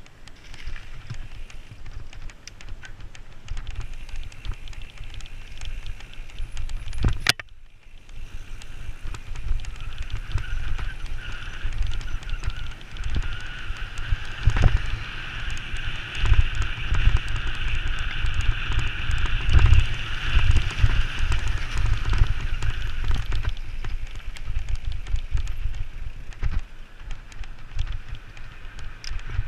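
Wind buffeting the microphone and road rumble of a fast downhill ride, full of low thumps. A sharp click comes about seven seconds in, and a steady high-pitched whine joins from about ten seconds in.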